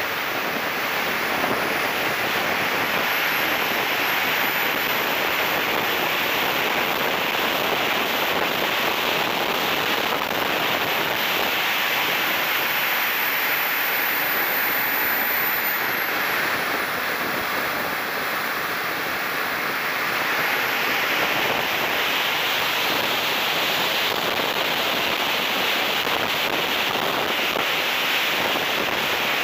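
Heavy air rush over the wing-mounted camera's microphone, with the high whine of the 100 N-class model jet turbine in flight. The whine rises about four seconds in, holds, drops back around sixteen seconds, and rises a little again near twenty-one seconds as the throttle changes.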